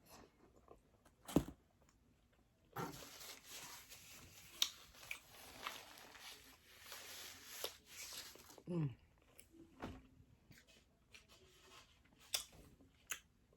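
Close-miked eating: crackly crunching and tearing of food for about six seconds, with scattered sharp mouth clicks and smacks before and after.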